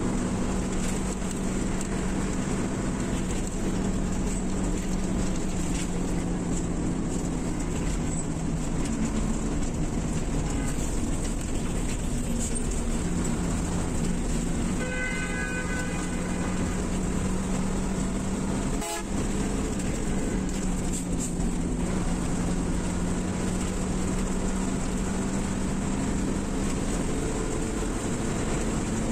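Steady engine drone and road noise of a coach bus driving on a highway, heard from inside the cabin. A vehicle horn sounds briefly about halfway through.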